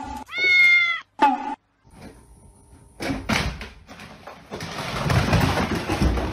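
A cat's meow: one call of under a second that rises at its start and then holds. A few seconds later comes a stretch of rustling and knocking noise.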